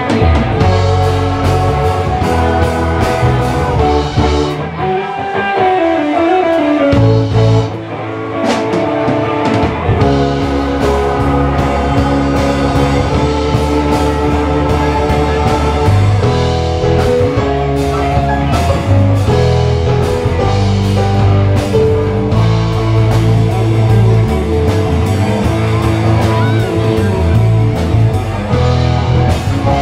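Live band playing an instrumental funk jam: electric guitar and keyboards over a drum kit. About five seconds in, the bass end drops out under a bending melody line, then the full band comes back in about three seconds later.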